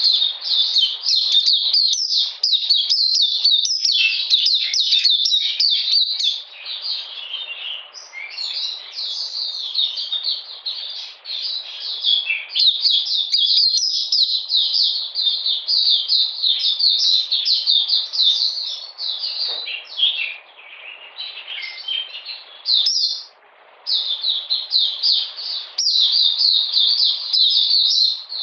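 Caged white-eye (mata puteh) singing a long, fast twittering song of high chirps almost without pause. It eases off briefly about two thirds of the way through, then resumes.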